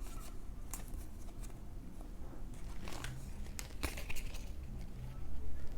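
Foil booster-pack wrappers and trading cards being handled: irregular crinkling and rustling with scattered small clicks and tearing sounds.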